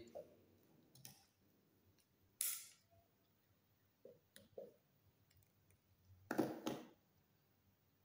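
Pliers and copper wire handled at close range: a few short snips, clicks and scrapes, the loudest just after six seconds, as a wire is cut, stripped and twisted onto the timer's black lead.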